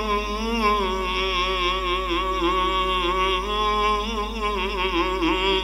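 A man's voice chanting the durood in a melodic recitation style, holding long wavering notes in one unbroken line. A steady low hum runs underneath.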